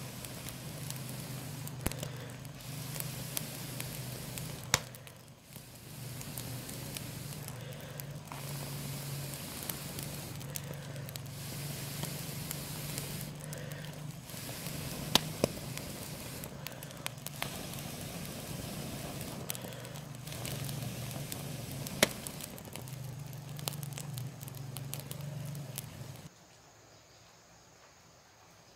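Freshwater snails roasting in their shells on glowing wood embers: a steady crackle and sizzle with sharp pops every few seconds. The sound drops away suddenly near the end.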